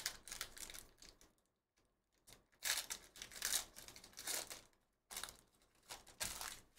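Foil wrappers of Donruss Basketball hobby card packs being torn open and crinkled by hand, in three bursts of crackling and tearing.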